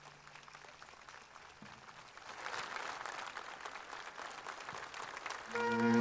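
Audience applauding, swelling to a peak about halfway through and then thinning out. A flute starts playing just before the end.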